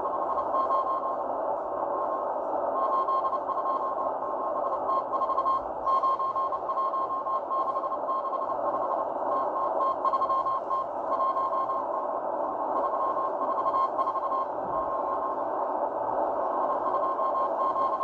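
Morse code from the Russian M12 number station on a Tecsun H-501X shortwave receiver in upper sideband: a single mid-pitched beep keyed on and off in dots and dashes, sending random letters and numbers, over a steady bed of shortwave static hiss.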